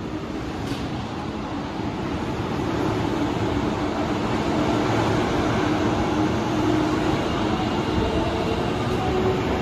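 Osaka Metro 22 series subway train running through the station without stopping: a steady rumble of wheels and running gear with a low hum, growing louder over the first few seconds and then holding as the cars pass.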